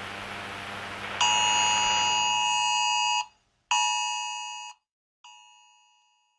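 Electronic alert chime made of several steady tones sounding together, heard three times: a tone about two seconds long starting about a second in, a shorter one that fades away, and a brief faint one. A steady rain-like hiss runs underneath at first and cuts out after the first tone.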